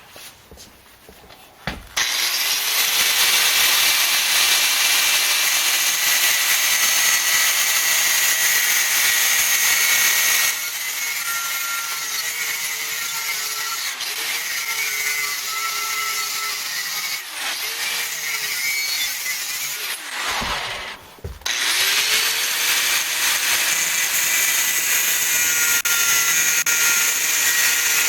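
Angle grinder spinning up and cutting through the steel flat of a metal pedestal, a steady high hiss over the motor's tone. It is switched off and spun up again twice along the way.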